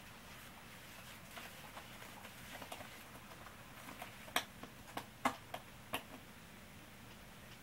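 Battery-powered Catch Me If You Can 2 cat toy running, its wand moving under the fabric skirt. A few faint ticks, then about six sharp clicks between four and six seconds in.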